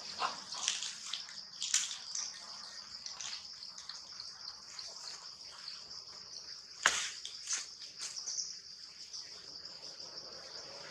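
A steady, high-pitched insect chorus, with a few short sharp sounds over it, the loudest about seven seconds in.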